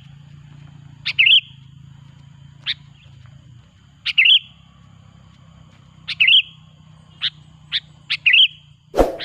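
Sooty-headed bulbul (kutilang) calling over and over: short, bubbly, warbled phrases every second or two, over a steady low hum. A sharp knock comes near the end.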